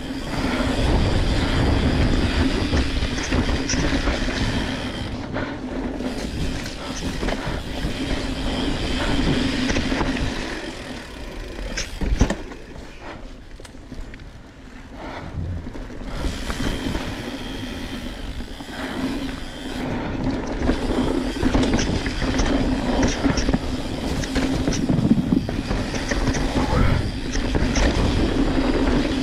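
Mountain bike rolling fast down a dirt singletrack, heard from a camera mounted on the bike: tyres running over dirt and small rocks and the bike rattling. There is a sharp knock about twelve seconds in, and the noise drops for a few seconds after it before building up again.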